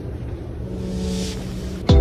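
A low, steady rumble with faint soft music tones over it, slowly growing louder, with a brief hiss swelling about a second in; just before the end, louder background music with plucked notes comes in suddenly.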